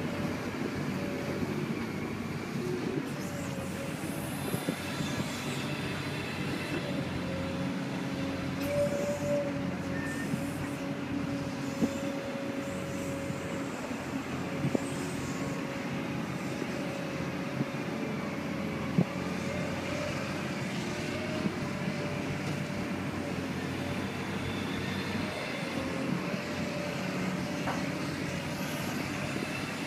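Heavy diesel machinery running steadily: a low rumble with a slightly wavering whine above it and a few sharp knocks.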